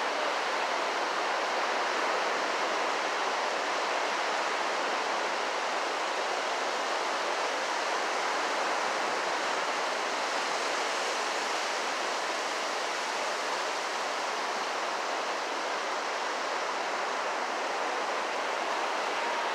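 Ocean surf, a steady rushing wash of waves breaking on the beach.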